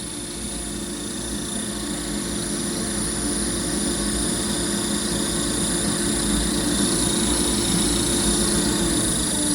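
Fan or blower running with a steady whirring drone and a high steady whine, the abnormal noise it is making; it grows slowly louder.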